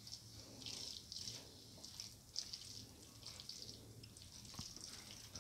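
Spatula stirring instant noodles and mutton in a frying pan: faint scraping and sizzling in uneven strokes.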